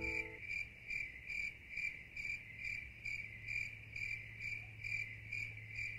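Cricket chirping steadily, a little over two short chirps a second, faint.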